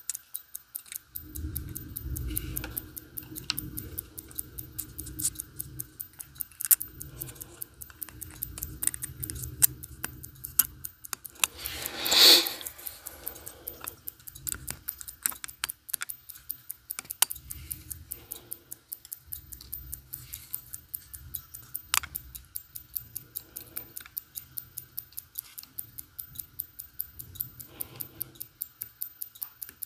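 Mechanical watch movement ticking in a fast, even rhythm as its balance runs, with a tumbling clothes dryer rumbling on and off in the background. A brief loud scrape comes about twelve seconds in.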